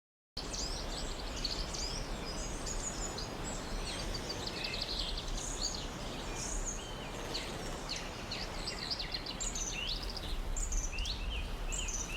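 Many songbirds chirping and singing at once, quick high chirps overlapping, over a steady outdoor background noise with a low hum. The sound cuts in abruptly just after the start.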